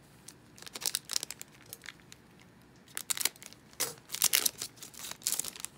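Foil trading-card pack wrapper crinkling as it is handled and torn open, in several short, sharp bursts of crackle.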